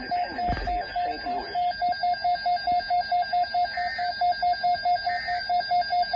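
Electronic alarm beeping rapidly, a steady single-pitched beep repeating about four times a second.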